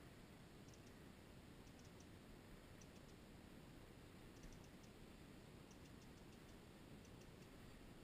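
Near silence: a faint steady hiss with faint, irregular ticking.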